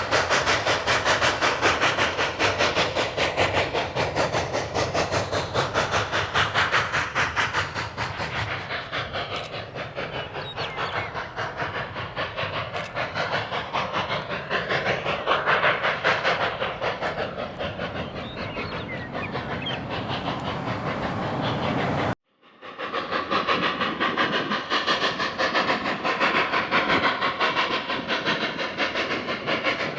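Narrow gauge steam train running, with a fast, even beat of wheels and locomotive exhaust and a hiss of steam. The sound drops out for a moment about three-quarters of the way through, then carries on.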